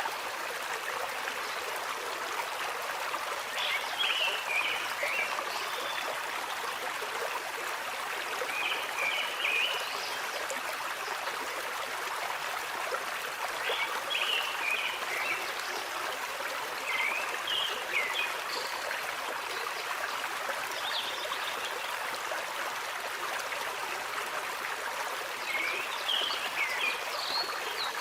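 Water flowing in a stream with a steady rush, and short high chirping calls every few seconds.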